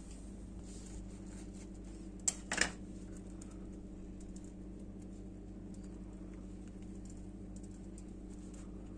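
A steady low electrical hum, with light clicks and rustles of hands handling a crusty baked stuffed bread roll. About two and a half seconds in there is a brief crackle as the glazed crust breaks open.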